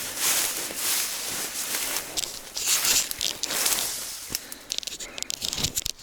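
Footsteps swishing through dense vegetation, roughly one step a second, followed near the end by a quick run of sharp crackles.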